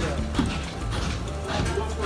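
Music playing, with a steady low hum underneath and two sharp knocks, one about half a second in and one near the end.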